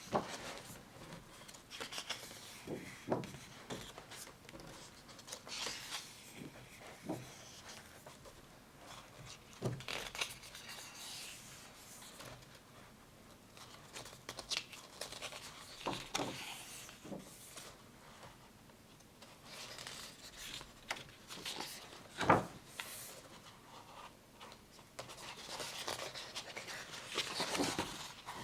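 Paper rustling and soft clicks of a photo booklet being handled and its pages turned, with one sharper knock about three-quarters of the way through.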